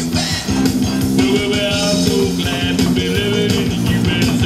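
Rock music from an animatronic band show's soundtrack, with electric guitar over a steady drum beat.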